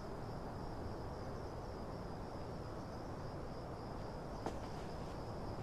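Faint night ambience: a steady high cricket trill over low background noise, with one faint click near the end.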